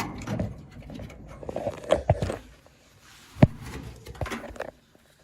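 Hands fitting a small switch bracket and screw inside a dryer cabinet: a run of small clicks and scrapes of metal and plastic, with one sharp knock about three and a half seconds in.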